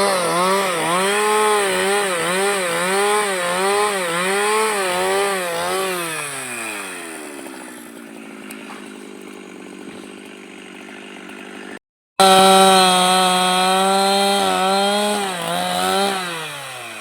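Husqvarna two-stroke chainsaw at high revs, its pitch dipping and recovering over and over as the chain bites into wood, then falling away to idle. After a short break it is run up to high revs again, then released back to idle near the end.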